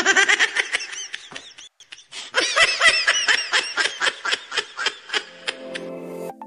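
Rapid bursts of laughter, a voice going 'ha-ha-ha' about five or six times a second, with a short break about two seconds in. Music notes come back in near the end.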